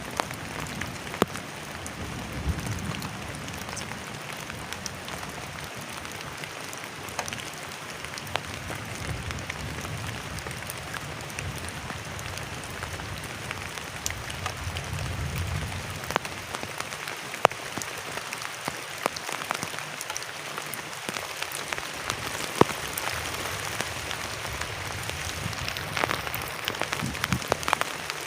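Heavy rain falling steadily, with many drops striking a nearby surface in sharp, irregular taps, and a low rumble at times.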